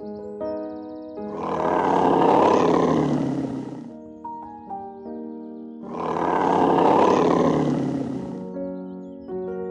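A deep, rough animal roar, twice, each lasting about two and a half seconds, over background music of held melodic notes.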